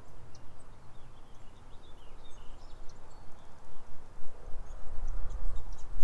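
Faint, scattered bird chirps over a low, uneven rumble on the microphone that grows stronger near the end.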